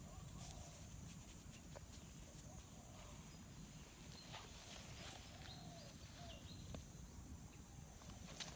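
Quiet forest ambience: a faint, steady high insect drone, scattered faint crackles and a brief rustle of leaf litter, and faint wavering animal calls in the distance.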